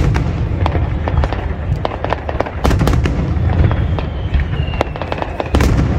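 Fireworks display: a dense run of sharp bangs and crackles over a continuous low rumble, with louder clusters of bangs near the middle and near the end.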